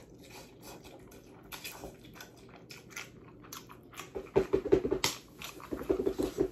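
A man slurping and chewing a mouthful of very hot, spicy noodles, with many small wet mouth clicks. About four seconds in he starts huffing hard through an open mouth, two bouts of loud breaths against the burn of the chilli.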